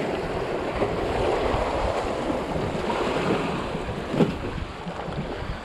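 Sea waves washing, with wind buffeting the microphone, easing off near the end; one short sharp knock about four seconds in.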